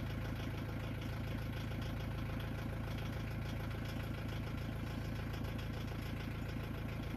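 An engine idling steadily, an even low hum with a fast regular pulse.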